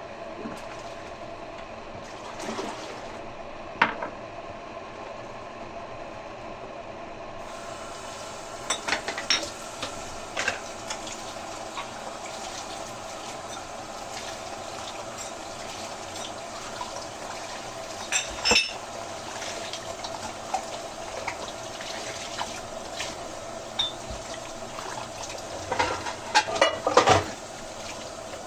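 Arzum Okka Turkish coffee machine running as it heats the coffee, a steady hum with scattered clinks and knocks, a cluster of them near the end.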